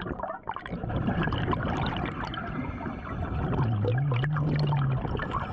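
Underwater bubbling and gurgling of a diver's exhaled air from the regulator, with many small crackles. A low wavering hum comes in for about a second and a half, past the middle.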